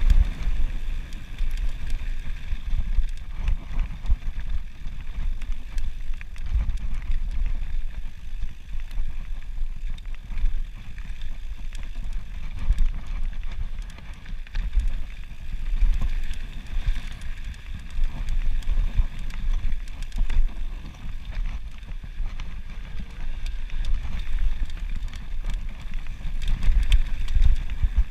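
Mountain bike descending a loose gravel singletrack: wind buffets the handlebar-mounted camera's microphone with a constant fluttering rumble, over the crunch of tyres on gravel and the clicks and rattles of the bike jolting over stones.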